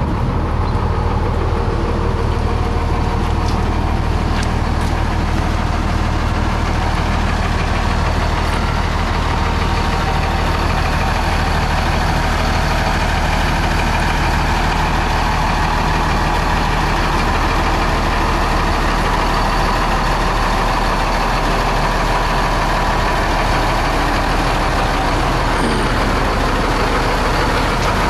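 Ford medium-duty water truck's diesel engine idling steadily.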